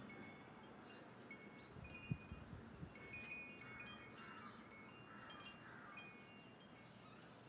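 Faint, high chime-like tinkling notes scattered throughout. A few low knocks come about two seconds in, from the knife meeting the wooden chopping board as the bread crusts are cut off.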